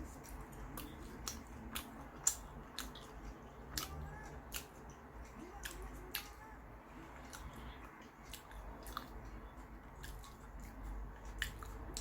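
A person chewing food close to the microphone, with soft irregular mouth clicks and smacks over a low hum.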